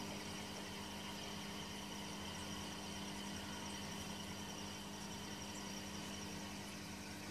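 Steady low electrical hum of running aquarium equipment, with an even hiss underneath.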